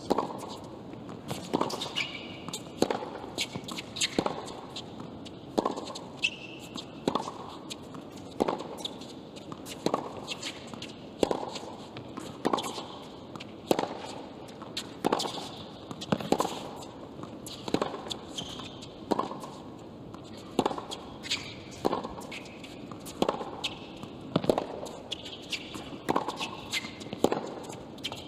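Tennis ball struck back and forth in a long baseline rally on a hard court: crisp racquet-on-ball hits at an even pace, about one every one and a half seconds.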